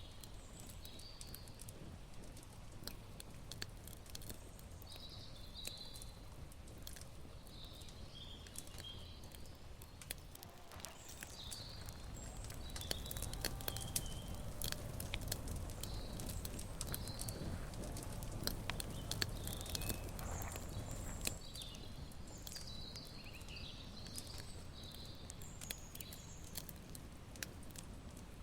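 Small birds chirping and singing in short phrases, over a scatter of light clicks and taps. A louder patch of low rustling and handling noise rises a little under halfway through and lasts about ten seconds.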